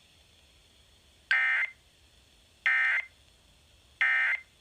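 Emergency Alert System end-of-message signal: three short bursts of SAME digital data tones, each about a third of a second long and about 1.4 seconds apart, marking the end of an alert broadcast.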